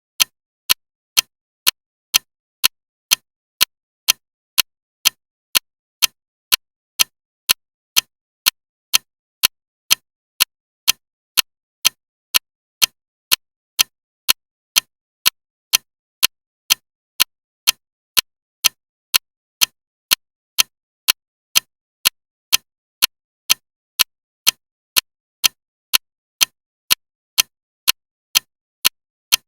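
Loud ticking clock: sharp, evenly spaced ticks in a steady, unbroken rhythm.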